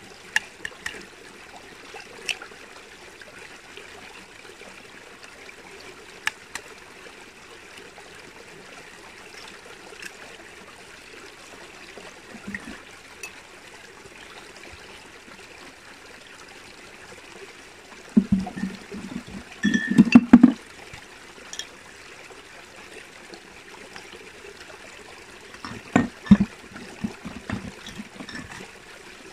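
Steady trickle of running water, with scattered sharp clicks and two short clusters of knocks about 18 and 26 seconds in.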